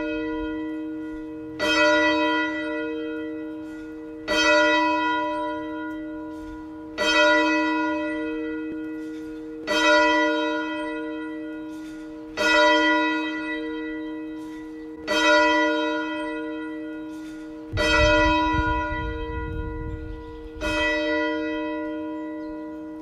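A single church bell tolling at a steady, slow pace, struck about every two and a half to three seconds, eight times, each stroke ringing on and fading before the next. It is the bell rung to open a worship service. A brief low rumble sounds under the stroke about three-quarters of the way through.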